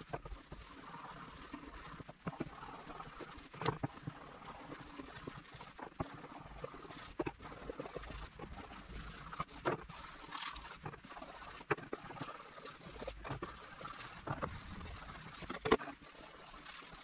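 A cloth rubbing firm, cold wood wax into a birch plywood board: a soft, uneven scrubbing with scattered light knocks and clicks at irregular times.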